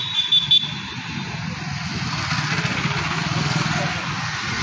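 Motorcycle and scooter engines running past on a city road, the traffic noise growing louder from about two seconds in. There is a short, shrill high-pitched sound at the very start.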